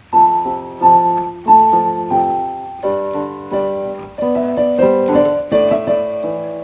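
Background music: piano chords struck about every half second or so, each note fading after it is struck, coming in loudly right at the start.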